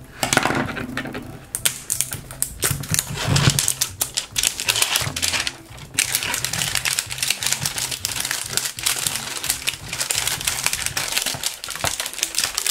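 Plastic shrink wrap crinkling and crackling as it is cut and peeled off a giant plastic toy egg, with a brief lull about six seconds in.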